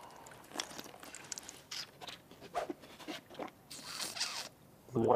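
A man drinking a liquid from a bowl, with small wet slurps, gulps and mouth clicks. Near the end comes a noisy suck of air through the lips, and a voiced gargle starts just before the end.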